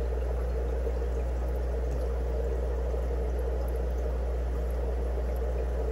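Aquarium filtration in a fish room running steadily: a constant low hum with water bubbling through the tanks' air-driven filters.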